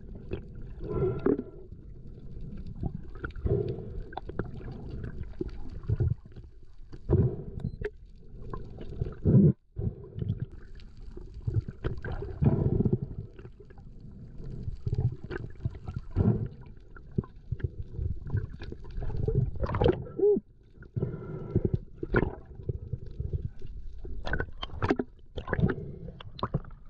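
Muffled water sloshing and bubbling around a swimming spearfisher, with many irregular surges and splashes.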